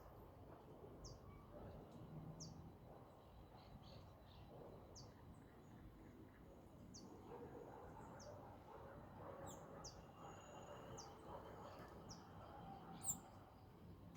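Faint bird chirping: short, high, falling chirps about once a second, one sharper and louder near the end, over a low background hiss.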